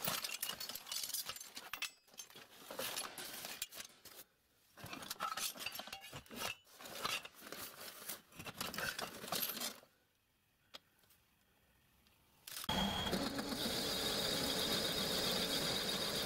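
Metal offcuts clinking and scraping as a hand sorts through a box of scrap pieces, in irregular clatters for about ten seconds. After a short quiet with a single click, a metal lathe starts up near the end and runs steadily, turning a metal disc.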